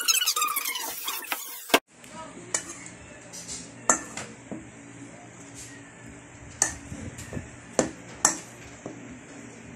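Metal spoon stirring stiff pita bread dough in a stainless steel bowl, with scattered sharp clinks of the spoon against the bowl, about seven in all. A high voice is heard for the first second and a half, then cuts off suddenly.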